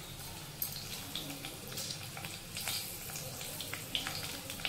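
Hot oil sizzling in a kadai as green chillies fry, a steady hiss with scattered pops and crackles.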